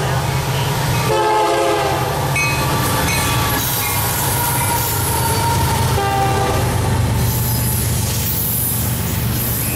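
Diesel freight locomotives, Union Pacific units leading, passing close by with the horn sounding a chord in the first two seconds and again around six seconds in, over the steady throb of the diesel engines. After the engines pass, double-stack container cars roll by with wheel and rail noise.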